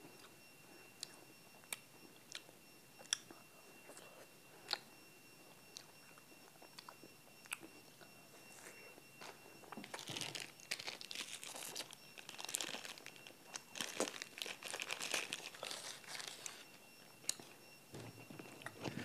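Scattered sharp, wet mouth clicks and smacks from eating an ice pop. About ten seconds in, a thin plastic ice-pop wrapper crinkles and rustles for several seconds as it is torn open.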